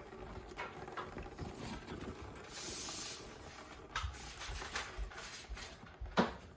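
Light clicks and knocks from handling a disconnected heating-oil line and its fittings, with one short hiss about two and a half seconds in, while the line drains into a bucket.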